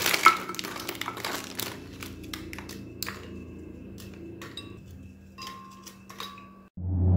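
Plastic Oreo packet crinkling, then cookies dropped by hand into a glass blender jar with scattered light clicks and taps. Music starts just before the end.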